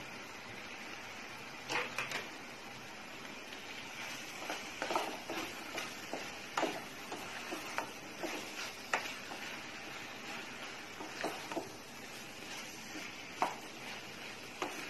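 Chopped capsicum stir-frying in a stainless steel pan: a steady sizzle, with a spatula scraping and knocking against the pan at irregular intervals.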